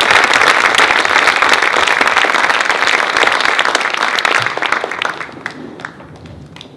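Audience applauding with dense clapping, then dying away over the last two seconds into a few scattered claps.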